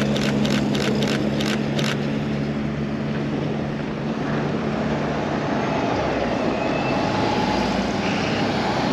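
A quick run of six camera shutter clicks in the first two seconds, over street traffic noise and a steady engine hum that fades out about halfway through.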